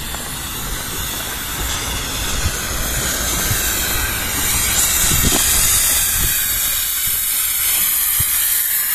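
Steam hissing from the double Fairlie steam locomotive Merddyn Emrys as it moves slowly along the platform, growing louder about halfway through as it draws close.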